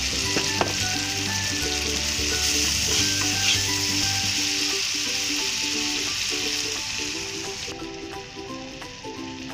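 Tomato-and-spice masala sizzling in hot oil in a metal kadai while being stirred with a slotted metal spoon. The sizzle drops off sharply near the end.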